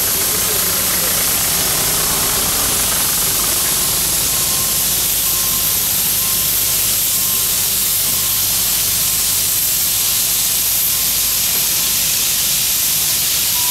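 Steam hissing steadily from a standing steam locomotive, an even unbroken hiss with no chuffing.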